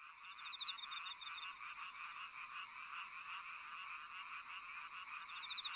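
Night-time animal chorus of chirping, most likely a looped sound effect. A steady high chirp pulses about twice a second, and a short rapid trill comes twice, about five seconds apart.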